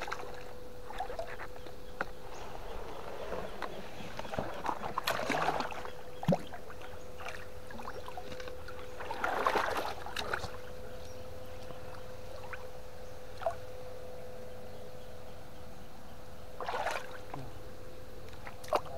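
Water splashing and sloshing in a few irregular bursts as someone wades in a shallow river, the biggest splashes about five, nine to ten, and seventeen seconds in. A steady thin hum runs underneath.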